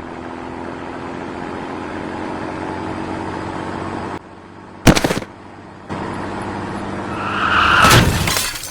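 Cartoon sound effects: a steady engine-like drone, a single sharp bang about five seconds in, then the drone returns and swells loud just before it cuts off.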